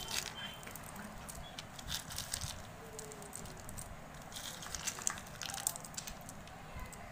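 Roasted peanuts sprinkled by hand over a bowl of spiced potatoes: a scatter of light ticks and patters as the nuts drop and knock together, coming in a few bursts.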